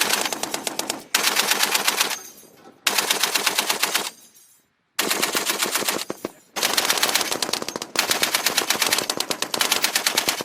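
M2A1 .50-calibre heavy machine gun firing in about six short bursts, each a second or two long, at roughly nine shots a second, with brief pauses between bursts.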